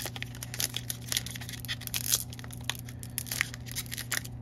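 A Topps baseball card pack's wrapper being peeled and torn open by gloved hands: an irregular run of short crinkling crackles and tears.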